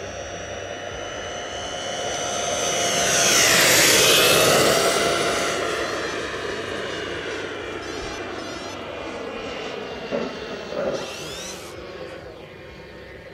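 Turbine turboprop engine of a model PC-21 whining as the plane makes a pass, growing loud about four seconds in and dropping in pitch as it goes by, then fading as it climbs away.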